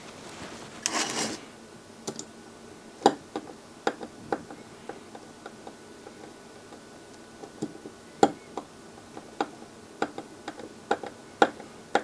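Screwdriver driving a mounting screw that fastens an STK4162II amplifier module to its aluminium heatsink: sharp, irregular metallic clicks as the blade seats and turns in the screw head, after a brief rustle about a second in.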